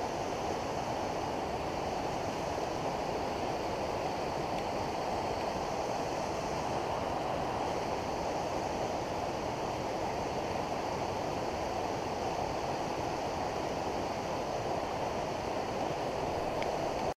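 A steady, even rushing noise with no gunshots, dog sounds or other distinct events.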